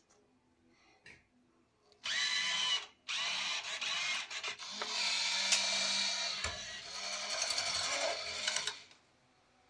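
Bill acceptor's transport motor whirring as a banknote is drawn in, with a brief pause about three seconds in, then running again for several seconds before stopping abruptly.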